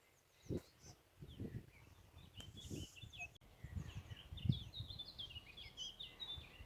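Small birds chirping in a dense run of quick, short high notes, with intermittent low rumbles underneath.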